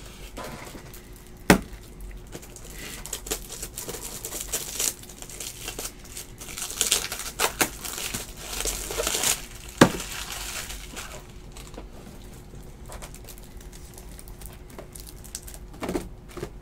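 Plastic trading-card holders and wrapping being handled: crinkling and rustling broken by a few sharp clicks and taps, the crinkling thickest a little past the middle.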